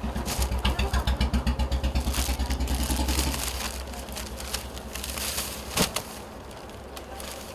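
A motorcycle engine running with a fast, even low thudding that fades away after about three and a half seconds. Light rustling and crackling sounds run through it, with one sharp click about six seconds in.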